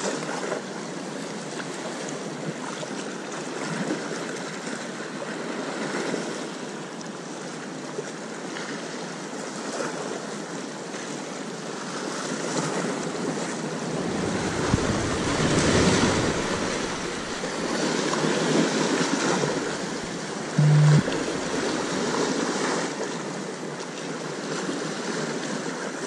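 Sea waves washing onto the shore, swelling louder twice midway. About three quarters of the way through, a short low hum cuts in for about half a second.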